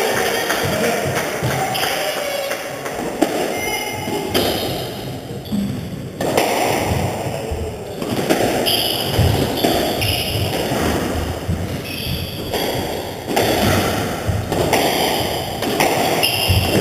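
Squash play: repeated thuds and taps of the ball struck by rackets and hitting the court walls, with players' shoes on the wooden floor.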